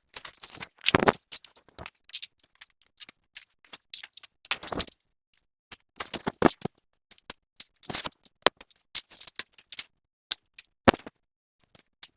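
Aluminium trade-show display frames being assembled by hand: irregular clicks, clacks and rattles of metal tubes and joints, with a few longer scraping or rustling noises.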